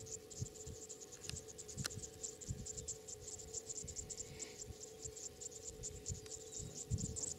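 Insects chirring steadily in grassland: a rapid, high-pitched pulsing trill that runs without a break. Beneath it there is a faint steady hum and some irregular low rumbles.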